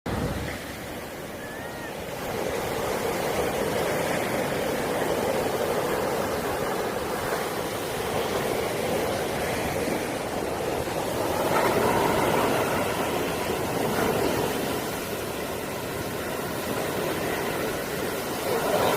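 Sea surf: a steady rushing wash of waves that swells and eases every few seconds.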